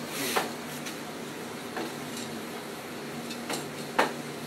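Aerosol spray-paint cans handled on a table: a few light clicks and clinks, the sharpest about four seconds in, as the spray nozzle on a can is being changed.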